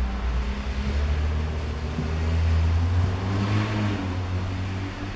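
Low hum of a motor vehicle engine running, swelling to its loudest about three seconds in with a brief hiss, then easing off.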